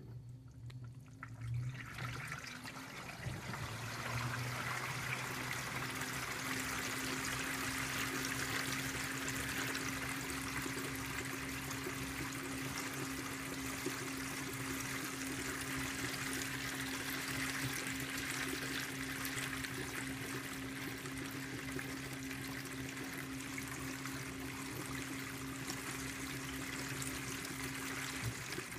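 2012 LG top-load washer spinning its basket of wet clothes, with water pouring and splashing in the tub over a steady motor hum. The sound builds up over the first few seconds as the basket gets going, and the hum cuts out near the end.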